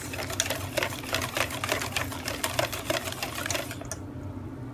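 Wire balloon whisk beating a thick batter in a stainless steel bowl, its wires clattering rapidly against the metal sides in a fast run of clicks; the whisking stops about four seconds in.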